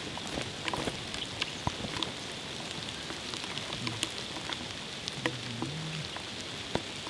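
Steady light pattering and crackling of rain or drips on forest leaf litter, with many small irregular ticks, and footsteps on the leaves as two people walk off along the path.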